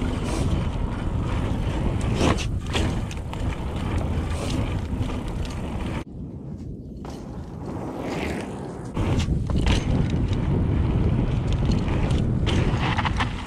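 Mountain bike ridden along a dirt singletrack: a rushing, rumbling mix of wind on the action-camera mic, tyres on dirt and the bike rattling over bumps, with scattered clicks and knocks. It drops away suddenly about halfway through and builds back a few seconds later.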